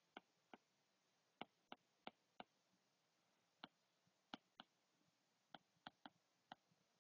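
Near silence, broken by about a dozen faint, irregularly spaced ticks: a stylus tapping on a tablet screen as words are handwritten.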